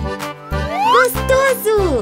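Upbeat children's song backing with a steady beat.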